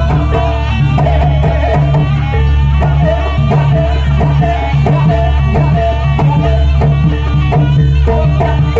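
Loud Javanese jaranan accompaniment music: hand drums beat a steady rhythm under a melody over a strong bass.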